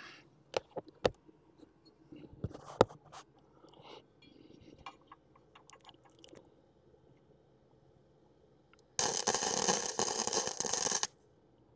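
Light knocks and clinks of steel parts being handled and set in place. About nine seconds in comes a harsh, crackling burst of noise from a metalworking tool, lasting about two seconds.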